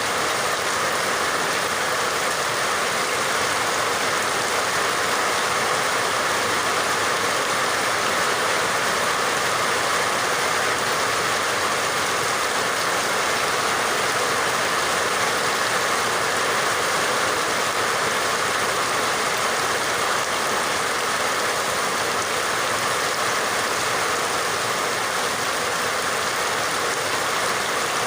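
Steady rain falling, an even, unbroken hiss with no distinct drops standing out.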